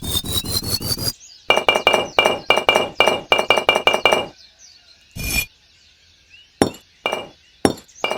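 A rapid series of sharp, glassy clinks, about five a second. They rise in pitch during the first second, then run on steadily at one pitch for a few seconds, and end in a few scattered single clinks.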